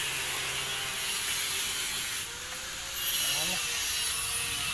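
Outdoor background noise, a steady hiss, with faint distant voices; a short voice-like sound rises about three seconds in.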